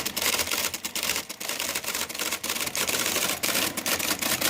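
IBM typewriter typing fast: a dense, rapid clatter of key strikes.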